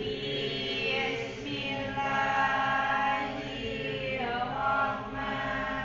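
A class of students reciting a prayer aloud together in unison, many voices drawing out the words in a slow, chant-like tone.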